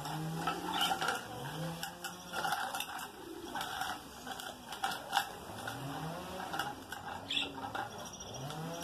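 Pet budgerigars chattering in short scratchy chirps and clicks, over repeated low cooing calls that rise and fall in pitch.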